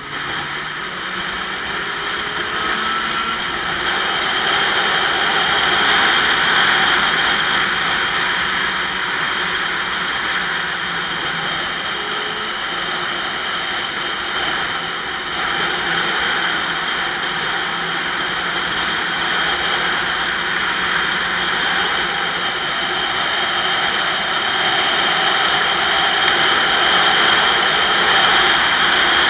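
Wind rushing over the microphone of a camera mounted on a moving motorcycle, with the bike's engine running underneath. The rush grows louder over the first few seconds and again near the end.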